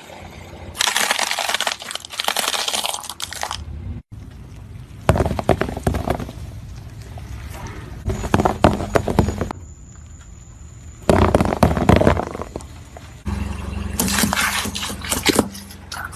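A run of crushing clips one after another: objects cracking and crunching under pressure, dense crackles and snaps, with abrupt cuts between clips every few seconds.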